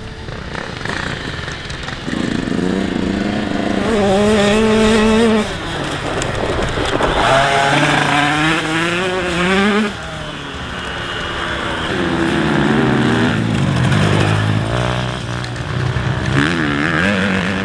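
Grasstrack motorcycle engine revving up through the gears and then dropping off sharply as the throttle is closed, about three times in turn, as the bike is ridden round corners.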